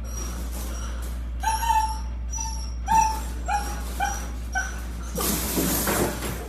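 A dog giving a run of short, high whimpering yips, about two a second, each dipping slightly in pitch, followed near the end by about a second of noisy rushing sound.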